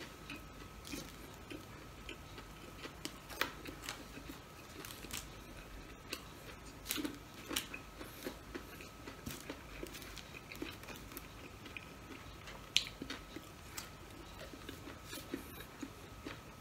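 A person chewing a mouthful of burger with the mouth closed: soft, irregular wet mouth clicks and smacks, with a sharper click now and then.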